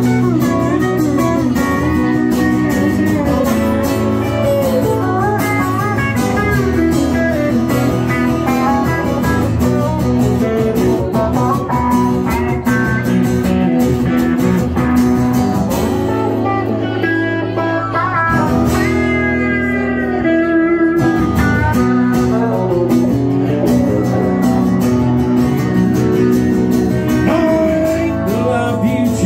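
Live pedal steel guitar and acoustic guitar playing together, the steel's notes sliding up and down in pitch.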